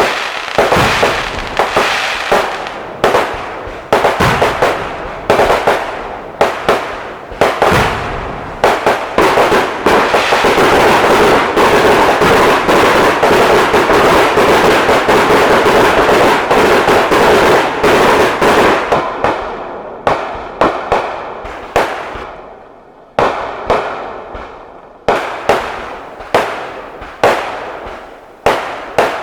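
Fireworks going off: loud bangs in quick succession, each with a decaying echo. About ten seconds in they merge into a dense, continuous barrage of explosions lasting around eight seconds, then thin out again to separate bangs about one or two a second.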